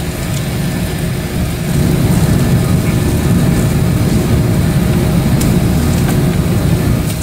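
Steady low rumble of aircraft noise heard from inside a parked airliner's cabin, growing a little louder about two seconds in.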